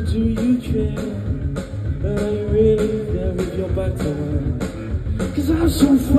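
Live rock band playing: a singer holding long sung notes into the microphone over electric guitar and a drum kit, heard from within the audience.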